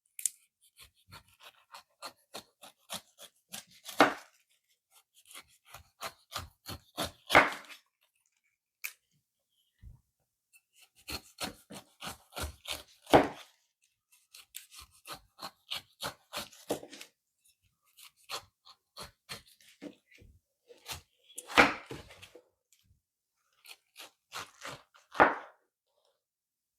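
Knife cutting and peeling a fresh pineapple: runs of short, sharp cuts with a few louder knocks of the blade and short pauses between them.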